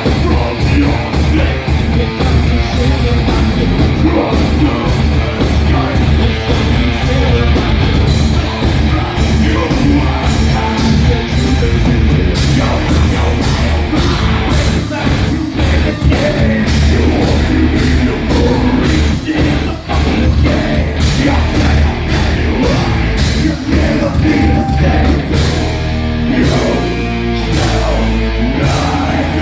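Live heavy rock band playing loud, with distorted guitars, bass and drums under yelled vocals.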